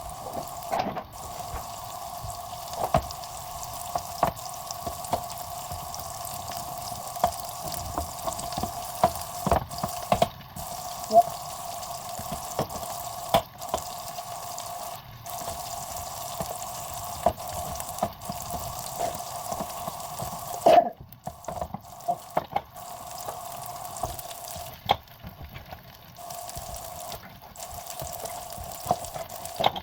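Food cooking in a pan, with a utensil clicking and tapping against the pan at irregular moments over a steady hum, the taps coming in a quick cluster about two-thirds of the way through.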